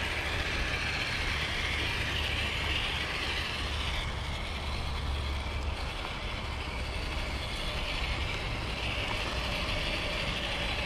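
Axial SCX10 II radio-controlled rock crawler's electric motor and geared drivetrain whirring steadily as it crawls along.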